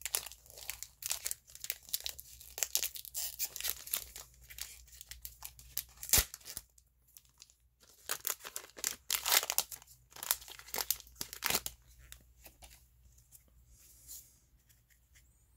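Foil wrapper of a Pokémon Shining Fates booster pack being torn open and crinkled: dense crackling, with one sharp snap about six seconds in, a short pause, more crinkling, then quieter handling of the cards near the end.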